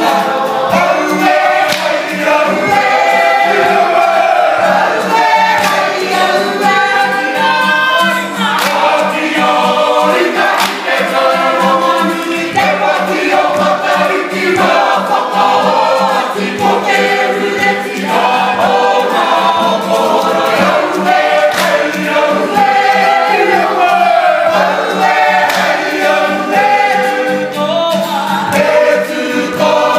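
Kapa haka group singing a waiata-ā-ringa (action song) in unison, men's and women's voices together, to a strummed acoustic guitar.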